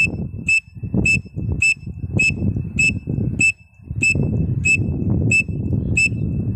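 Pen-cap whistle blown in cupped hands to imitate a grey francolin (teetar) call: about a dozen short, high-pitched notes repeated evenly, a little over half a second apart, over a steady low rumble.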